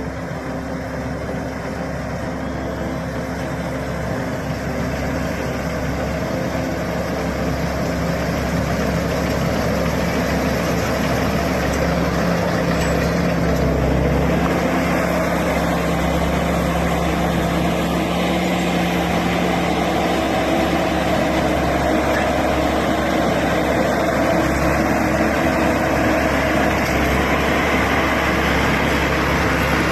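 A Tamco Pro Z3000 combine harvester's engine runs steadily with a heavy mechanical drone, growing louder over the first half and then holding.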